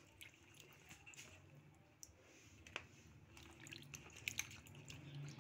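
Faint sloshing and small splashes of water as a hand swishes tomatoes and green chillies around in a plastic basin to wash them.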